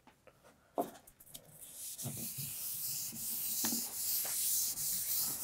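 Steady rubbing on a writing surface, starting about a second and a half in after a few small clicks.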